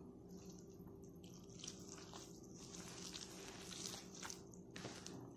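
Hands kneading and mixing kısır, soaked bulgur with drained canned tomatoes and herbs, in a plastic bowl: faint, uneven wet squishing and crackling, over a faint steady hum.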